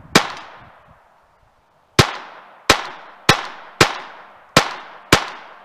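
Glock 44 .22 LR pistol firing CCI Mini-Mag rounds: seven shots, one near the start, then after a pause of nearly two seconds a steady string of six about half a second apart, each sharp crack trailing off in a short echo. The brand-new, unoiled pistol cycles without a jam.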